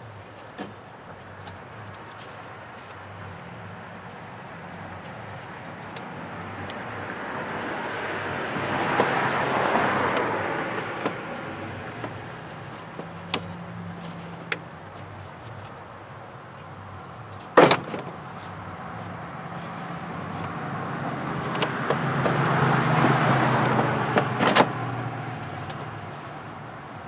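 Two road vehicles passing by, each swelling and fading over several seconds, with a few sharp clicks or knocks, the loudest about two-thirds of the way through.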